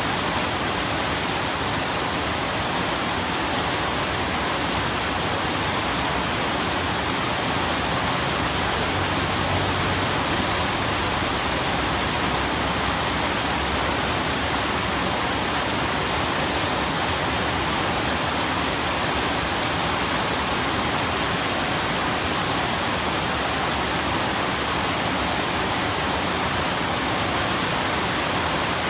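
Steady rain: an even, unbroken hiss with no separate drops standing out.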